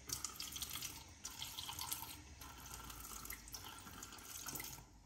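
Bathroom tap running into a sink while hands splash water onto the face to wet it before lathering, with irregular splashes over the running water. The running water cuts off near the end.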